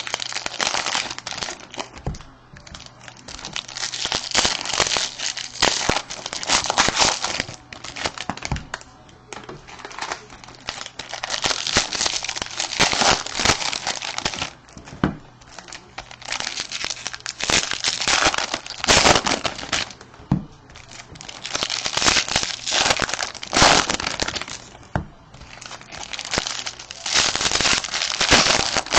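Jumbo baseball card pack wrappers crinkling and tearing as packs are opened, with cards handled in between. It comes in repeated bursts of rustling with sharp crackles.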